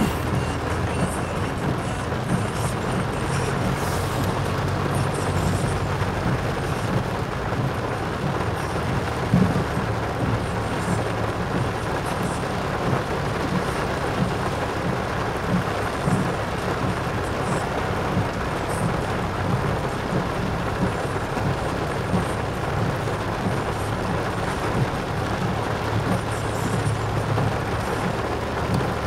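A vehicle driving steadily: a constant low engine hum under a steady wash of road noise.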